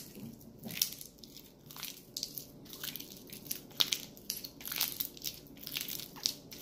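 Very sticky, under-activated glue slime being squeezed and stretched by hand, giving off a dense run of irregular crackling clicks and pops.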